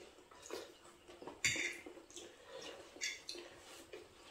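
Cutlery clinking quietly against plates a few times while people eat.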